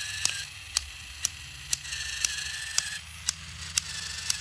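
Motorized toy train engine running with a sharp click about twice a second over its motor's faint hum and whine: a slipping gear, though the engine still works.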